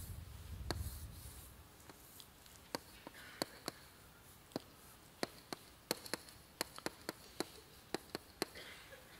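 Chalk writing on a blackboard: about fifteen sharp taps and short scrapes of chalk strokes, irregularly spaced, from about three seconds in. A low rumble comes before them, in the first second or so.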